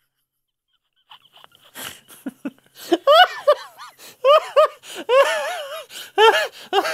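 A man laughing hard in short, high-pitched bursts, after about a second of silence.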